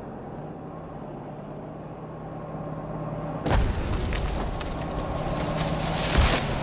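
A steady low hum, then a sudden loud blast about three and a half seconds in, followed by rumbling noise and a second, heavier blast near the end.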